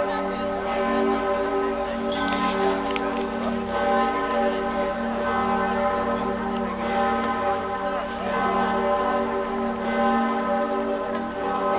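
The Pretiosa, Cologne Cathedral's great bronze bell, swinging and ringing. Each stroke's ringing hum runs on into the next, so the tone never stops and the loudness swells and eases every couple of seconds.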